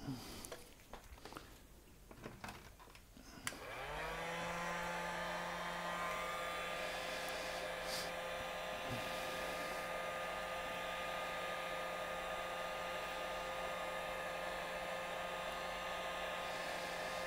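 Handheld hot-air paint-stripper gun switched on about three and a half seconds in: its fan motor spins up with a short rising whine, then runs steadily with a blowing hiss and a steady hum. A few light handling clicks come before it.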